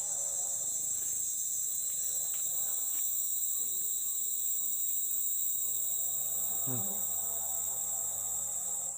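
Steady, high-pitched chorus of insects, an unbroken shrill drone with no change in level.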